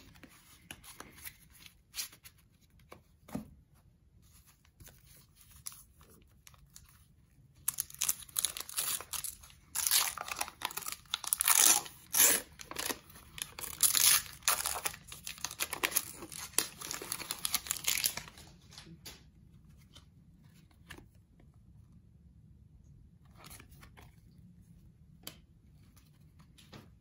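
A 1990 Fleer baseball card pack's wrapper being torn open and crinkled by hand: a dense stretch of tearing and crackling starting about a third of the way in and lasting about ten seconds, with lighter handling ticks before and after.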